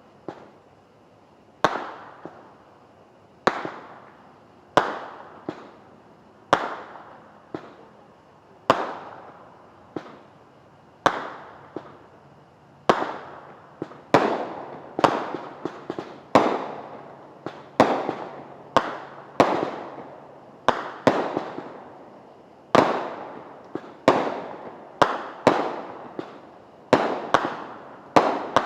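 Liberty Bell brand consumer fireworks going off in a long run of sharp bangs, each trailing off in an echo. The reports come every one to two seconds at first, then faster and closer together from about halfway through.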